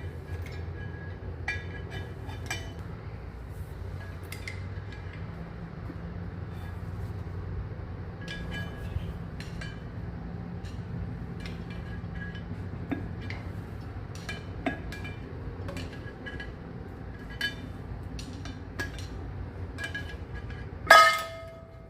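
Light metallic clinks and taps of hand tools and clutch parts being worked loose, scattered irregularly over a steady low hum. About a second before the end comes a single loud metal clank that rings on briefly.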